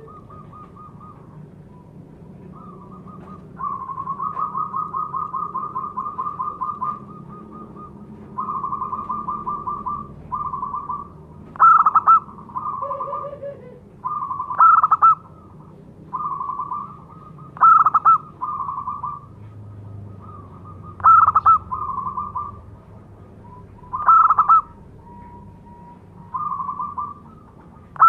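Zebra dove (local perkutut) singing: phrases of rapid, rolling coos, with a louder short accented note about every three seconds in the second half.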